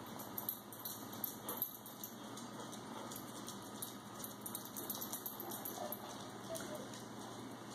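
Young puppies making faint, short squeaks and whimpers, a few of them about five to seven seconds in, over light clicking as a puppy moves about on fabric bedding.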